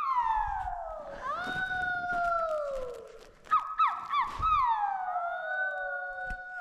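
A child's high voice making long sliding howls that swoop down and up in pitch, with a quick run of short yelps in the middle.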